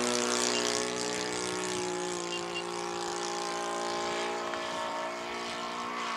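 Radio-controlled Spitfire model aircraft's engine and propeller droning steadily in flight, the pitch wavering slightly as it flies.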